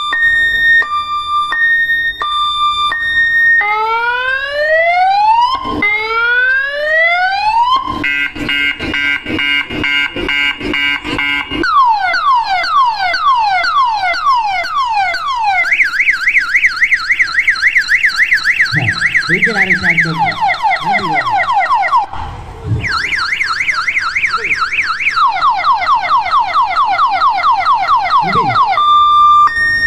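Loud electronic multi-tone siren of the car-alarm kind, cycling through its patterns. It goes from alternating two-tone beeps to slow rising wails, a rapid chatter, falling sweeps about three a second and a fast warble. It breaks off briefly about two-thirds of the way through, then resumes with fast falling sweeps.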